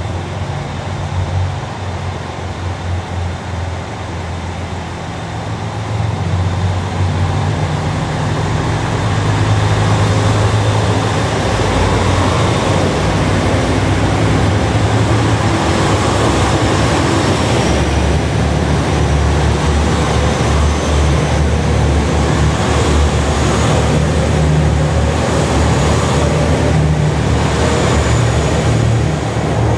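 HOT7000-series diesel multiple unit pulling out of the station: its diesel engines run hard as it accelerates and the cars roll past close by. It grows louder about six seconds in and then stays loud.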